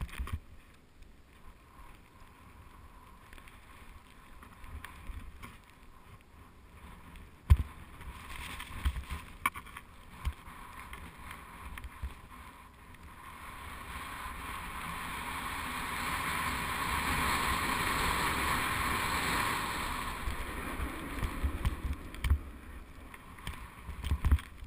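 Snowboard sliding over snow: a hiss that builds about halfway in, is loudest a few seconds later, then fades. Wind buffets the helmet-mounted camera's microphone throughout with low rumbling and occasional thumps.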